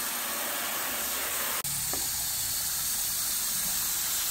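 Garden hose spray nozzle spraying water into a plastic storage bin as it fills: a steady hiss with a brief break about a second and a half in.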